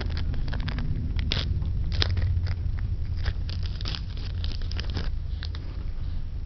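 Hands opening and handling a pack of game cards and its packaging, with irregular crackling and clicking over a steady low hum.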